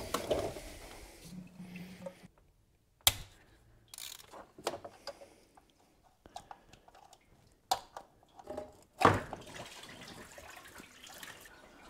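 Hand tools clicking and clinking against engine parts while parts around a VW 2.0T engine's water pump are unbolted, with a few sharp knocks and a brief hum in the second second.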